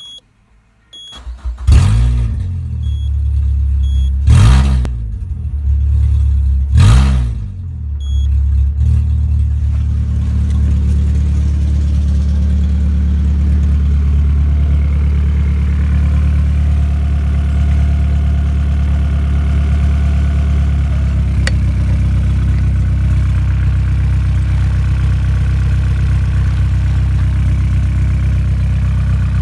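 Peugeot 307's 2.0-litre EW10J4 (RFN) four-cylinder petrol engine starting about a second in and revved sharply three times, then settling to a steady idle.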